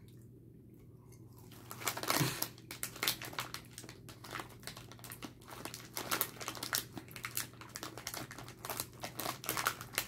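Plastic candy packaging crinkling and rustling in irregular crackles, starting about two seconds in and going on without a break.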